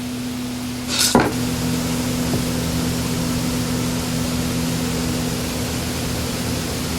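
A steady machine hum with a hiss, and a single sharp knock about a second in, after which the hum is a little louder.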